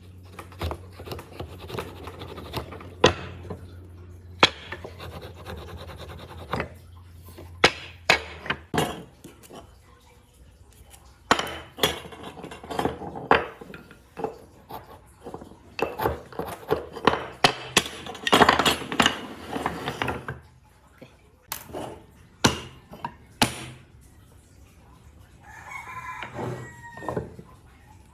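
Wood being worked by hand: a run of sharp knocks and taps with stretches of scraping, over a low hum for the first six seconds or so. A rooster crows near the end.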